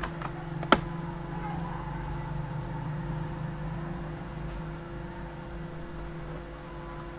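A steady low electrical hum, with two or three sharp clicks in the first second, the loudest just under a second in.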